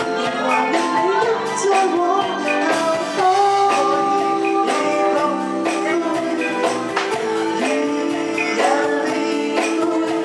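A woman singing live into a microphone, backed by a band with a steady drum and cymbal beat.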